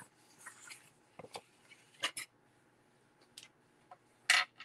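Sheets of card stock being handled and laid down on a cutting mat: a few short paper rustles and light taps, the loudest one near the end.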